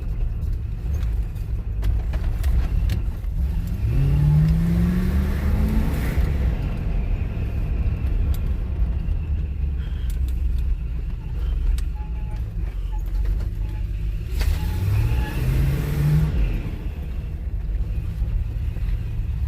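1978 Chevrolet Corvette's V8 running on the road under a steady low rumble, heard from inside the car. The engine pitch rises twice as it accelerates, about four seconds in and again near fifteen seconds. The rear end has just been topped up with gear oil after running low, and the owner says it drives a lot better.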